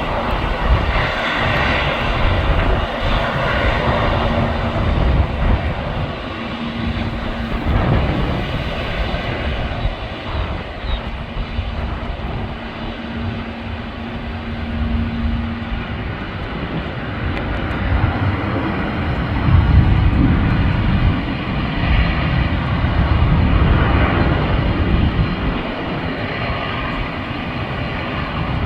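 Jet aircraft engines running loud and steady as a low, rumbling roar. It swells about two-thirds of the way in, and a steady low hum sits beneath it for much of the first half.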